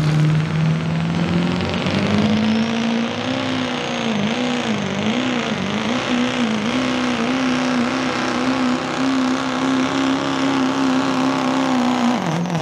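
Ford Super Duty pickup's diesel engine at full throttle pulling a 40,000-pound weighted sled. The revs climb about two seconds in, waver up and down for a few seconds, then hold steady and high, and fall away just before the end.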